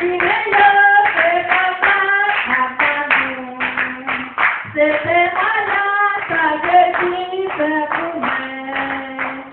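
A woman singing a Creole gospel song unaccompanied, in long held notes, with hands clapping a steady beat along with it.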